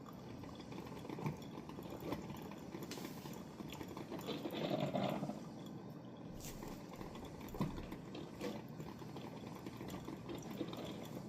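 Pantrymade 2-in-1 drip coffee maker brewing, with water gurgling through the machine and coffee dripping into the carafe near the end of a 12-cup brew. It gets a little louder about halfway through.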